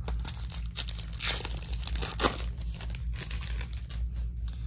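Foil wrapper of a Topps Chrome basketball card pack being torn open and crinkled by hand: a flurry of crackles and rustles, loudest at about one and two seconds in.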